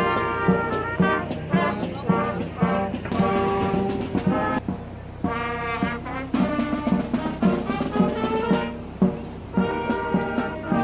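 Youth brass and percussion band playing a tune: tubas, tenor horns and cornets over a steady beat of snare and bass drums, about two strokes a second. About five seconds in, the drums drop out briefly under a held chord.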